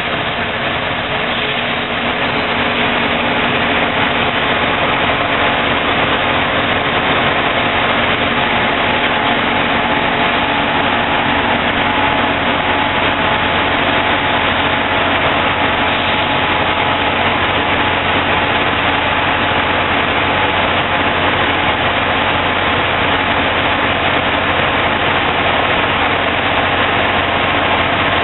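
Diesel commuter-rail locomotive idling: a loud, steady drone with a low hum and no change in pitch.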